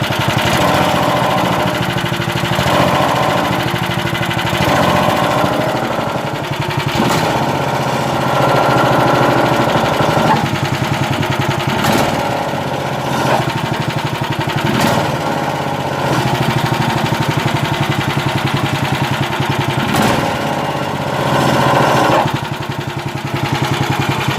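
Lifan petrol engine running and revved up and down several times with the clutch disengaged, giving a hum and rattle from the crankshaft area, which the owner takes for a failed engine bearing. A few sharp clicks sound over the engine.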